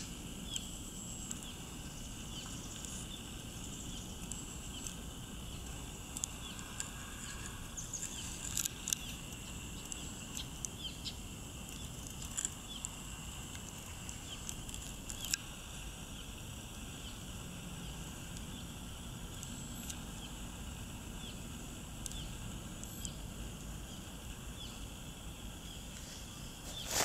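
Outdoor background: a steady low rumble under a faint high-pitched drone with small chirps, and scattered small ticks, a few louder ones about a third and halfway through.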